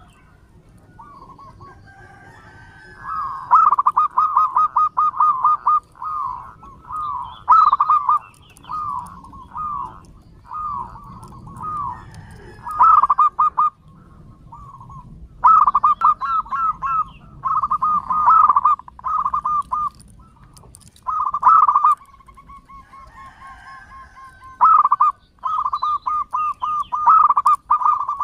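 Zebra dove (perkutut) singing its long song: phrases of quick, rippling repeated coos, each a second or two long, with short pauses between them.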